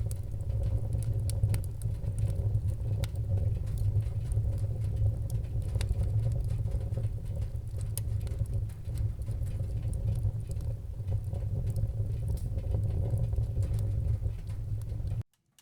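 Wood fire in a fireplace burning with a steady low roar and scattered sharp crackles and pops. The sound cuts off abruptly just before the end.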